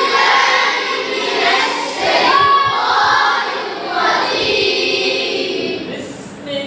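A group of voices chanting Quran recitation together, with a short break near the end.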